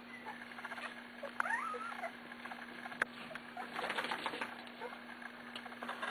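19-day-old Pembroke Welsh corgi puppies squeaking and scuffling: one short high squeak that rises and dips about a second and a half in, among soft scratching and shuffling, with a sharp click near the middle.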